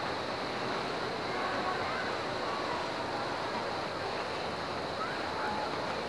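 Calm sea washing and lapping in a steady hiss of small surf.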